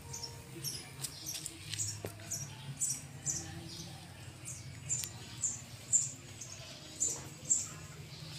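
Short, high-pitched chirps repeating about twice a second from a small animal, over a low steady hum.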